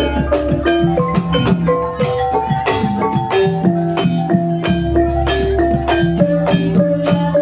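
Banyumasan ebeg gamelan music: struck keyed metal instruments ring out in quick interlocking notes over drum strokes. A deep low tone holds through the first two seconds and again in the second half.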